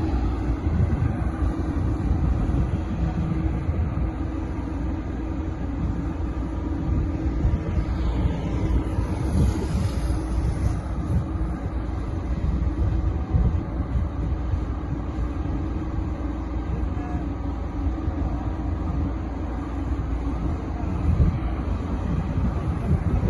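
Road roller's diesel engine running steadily with a low rumble.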